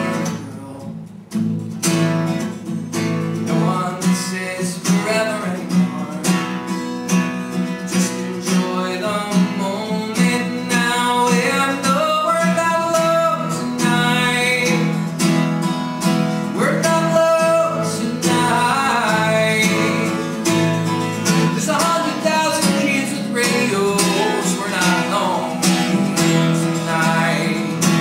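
Acoustic guitar strummed in a steady rhythm, with a man singing a folk-pop melody over it. The playing briefly thins about a second in.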